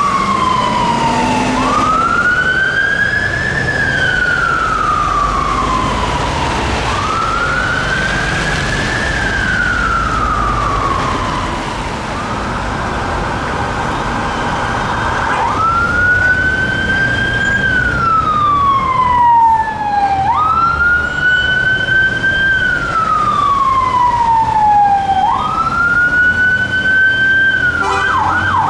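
UK fire engine's siren on a slow wail, rising and falling about every five seconds. Partway through, a police car's wail siren takes over with a quicker rise and a long fall, and it switches to a fast yelp right at the end.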